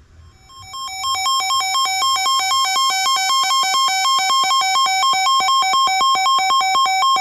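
Electronic emergency alert tone, a synthetic beeping that alternates rapidly between two pitches. It fades in over about the first second, then holds loud until it cuts off abruptly, heralding an Emergency Alert System flood warning.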